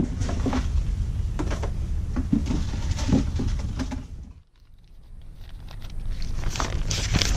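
Scattered knocks of a waste bin and cabinet being handled over a steady low hum. The sound dips out briefly just past the middle, then paper and plastic waste rustle and crinkle as it is sorted by hand.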